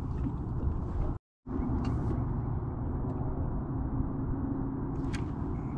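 Steady low rumble with a faint hum on a small fishing boat, dropping out completely for a moment about a second in.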